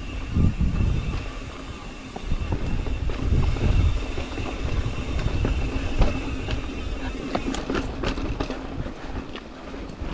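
Mountain bike rolling fast over a rocky trail: tyre rumble and gusts of wind buffeting the action camera's microphone, with the bike rattling over bumps. A steady high whine runs through most of it, and a cluster of sharp knocks and clatters comes near the end.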